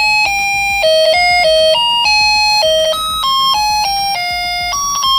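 Snap Circuits Jr. music chip playing its beeping electronic tune, one buzzy note at a time at about three notes a second. The tune keeps playing while light falls on the photoresistor.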